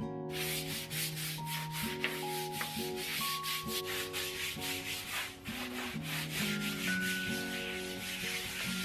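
Stiff hand scrub brush scrubbing a powder-strewn tile floor in quick, repeated back-and-forth strokes, a few a second. Soft background music plays underneath.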